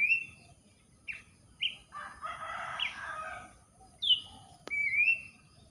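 Pelanduk semak babbler calling: short, clear whistled notes about a second apart, some sliding down and some rising. About two seconds in there is a harsh, scratchy stretch lasting under two seconds, and a single sharp click comes near the end.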